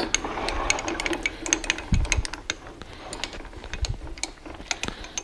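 Irregular light metal clicks and knocks from setting up a metal lathe: the tailstock, carrying a drill chuck and bit, being slid along the bed and positioned against the work.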